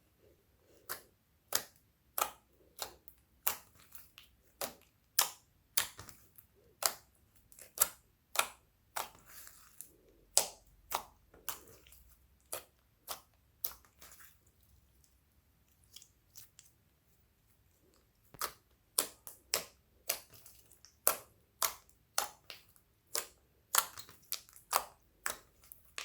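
Glossy slime being folded and pressed by hand, giving sharp wet pops and clicks about twice a second as air pockets burst. There is a pause of a few seconds just past the middle.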